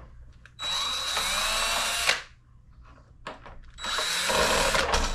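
Cordless drill/driver backing out screws, run twice for about a second and a half each, with a steady high whine.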